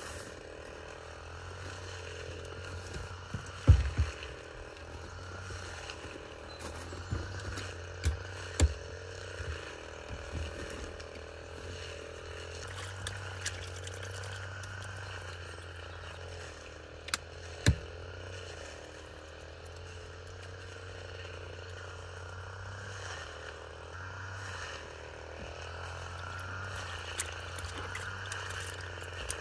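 Hands splashing and sloshing water in a plastic washing-up basin during a wash. A few sharp knocks of things being set down or a drawer shutting, the loudest about four seconds in, over a steady low background hum.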